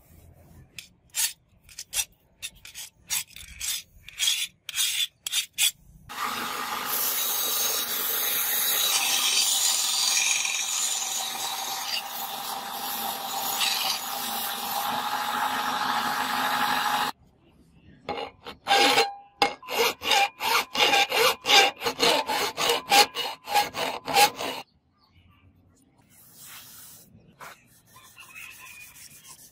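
Steel sword blade being abraded: quick back-and-forth hand-sanding strokes at about three a second, then about eleven seconds of steady grinding on a running belt sander from about six seconds in, then faster hand-sanding strokes again, fading to fainter rubbing near the end.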